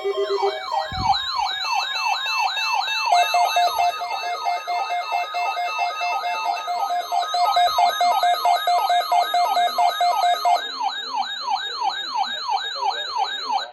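Weather alert receivers sounding their alarms together, set off by the NOAA Weather Radio weekly test: a rapid wailing sweep repeating about three times a second, with steady beeping tones joining about three seconds in and dropping out near eleven seconds. The alarms cut off together at the end.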